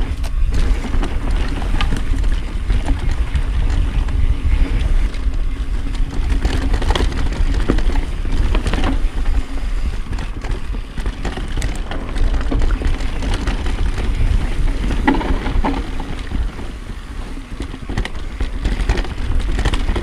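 Pivot Switchblade mountain bike riding fast down a dirt forest trail: a steady heavy rumble of tyres rolling over dirt and leaves, with frequent clicks and rattles from the bike over bumps.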